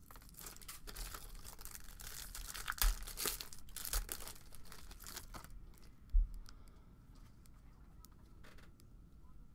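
Foil trading-card pack wrapper being torn open and crinkled, a dense crackling rustle for about the first five and a half seconds. It then goes quieter as the cards are handled, with one low thump about six seconds in.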